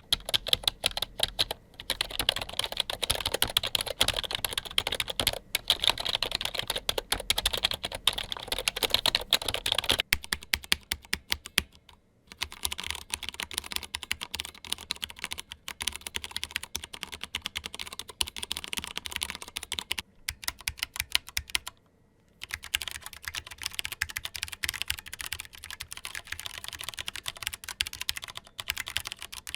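Continuous fast typing on three keyboards in turn, changing about every ten seconds. First comes a PFU HHKB Lite2 rubber-dome keyboard, then an ARCHISS Maestro 2S mechanical keyboard, then a Mistel Barocco MD770 split mechanical keyboard. There are short pauses in the key clicks about twelve and twenty-two seconds in.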